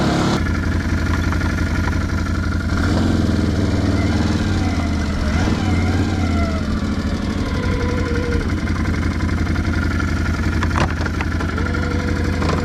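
Can-Am Outlander 570 ATV's V-twin engine running while the machine is ridden, its pitch rising and falling slightly with throttle. A couple of sharp knocks about eleven seconds in.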